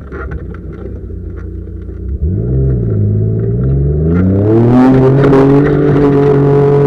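Opel Monterey 4x4's engine working through soft sand, with knocks and rattles over the rough track at first, then revving up for about three seconds from about two seconds in and held steady at high revs.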